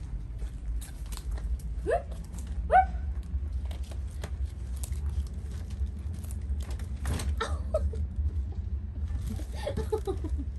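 Flip-flop footsteps on a concrete walkway and a clear plastic bag of popcorn crinkling as it is handled and set down, over a steady low rumble. Two short rising calls come about two seconds in.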